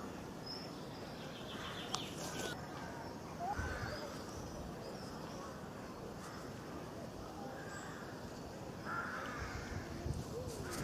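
Birds calling: several short calls a few seconds apart over a steady background noise.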